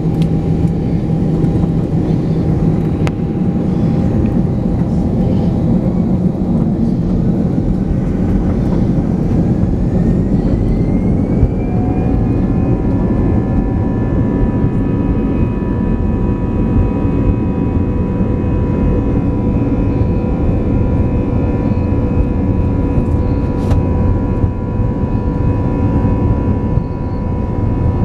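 Airbus A319 jet engines heard from inside the cabin over a steady low rumble. About ten seconds in, the engine whine rises in pitch as the engines spool up to takeoff thrust, then holds steady through the takeoff roll.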